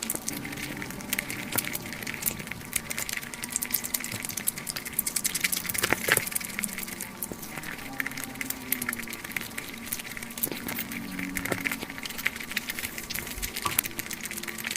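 Close-up crunching and chewing of crispy fried chicken: dense, irregular crackles with a few sharper snaps, one of the loudest about halfway through. A faint steady hum runs underneath.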